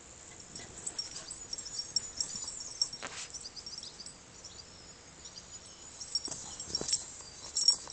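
Garden birds chirping in the background, with a few short sniffs and rustles as a dog noses at a frog in the grass.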